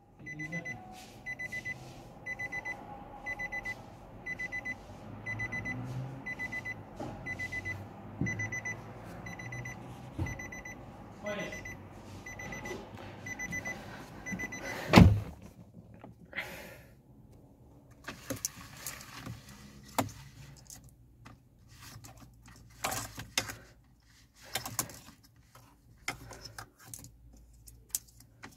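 A car's warning chime beeping in quick bursts of short, high beeps, about one burst a second, until it stops with a knock about halfway through. After that, light plastic clicks and rattles come from the steering-wheel clock spring being turned by hand.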